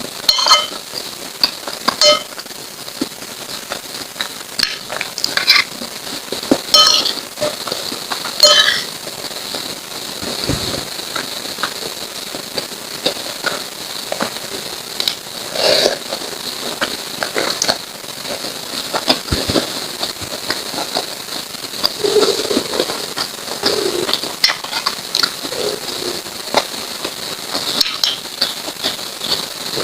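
Close-miked eating sounds from a lontong sayur meal: wet chewing and mouth clicks, with a few clinks of a spoon against a plate or bowl, over a steady hiss.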